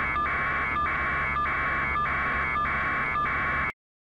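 Helicopter in flight: a steady noise with a regular pulse about every 0.6 s over a low hum, cut off suddenly near the end.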